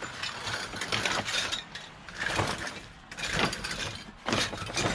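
Rummaging through items in a dumpster: irregular rustling and clicking as things are picked up and moved around.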